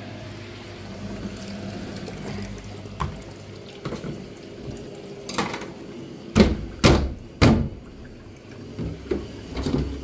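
Knocks and thuds from the casing of an Indesit WIL 85 washing machine being handled as its top lid is worked loose and lifted off. The three loudest come close together about six to seven and a half seconds in. A low steady watery noise fills the first few seconds.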